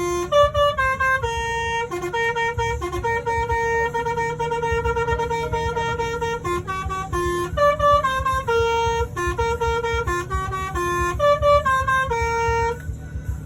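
Basuri telolet musical horn on a coach playing a tune: a run of pitched horn notes, each held a fraction of a second, over a low rumble. The tune cuts off suddenly shortly before the end.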